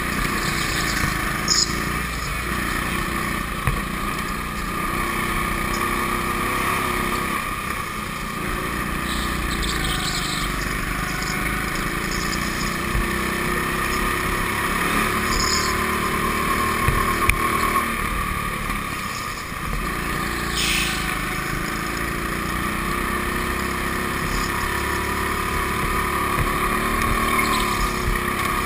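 Go-kart heard from on board while lapping an indoor track: a steady motor drone whose pitch rises and falls with the driving, with a few brief high squeals.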